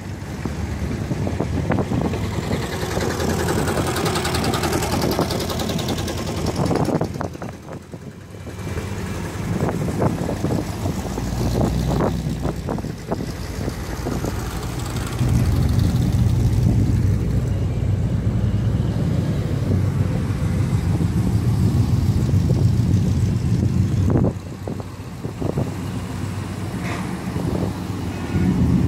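Classic cars and a hot rod driving slowly past one after another, their engines running and swelling as each goes by. The loudest is a deep, low engine rumble lasting several seconds about halfway through, as a red hot-rod coupe with an exposed engine passes.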